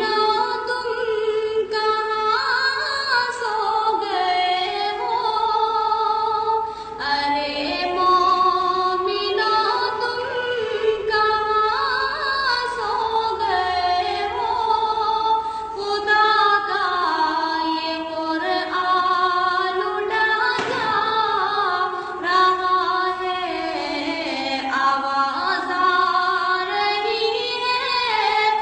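A girl singing a naat, an Urdu devotional song in praise of the Prophet, solo: one voice holding long notes with smooth, gliding ornaments between pitches. No instruments are heard.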